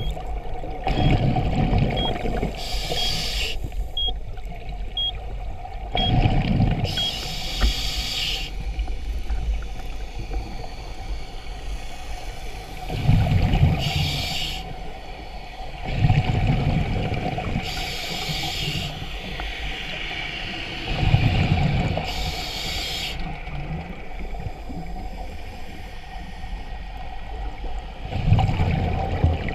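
Scuba regulator breathing underwater: a hiss on each inhale and a bubbling rush of exhaled air, about one breath every four to five seconds. A faint high beep sounds once a second for the first seven or so seconds.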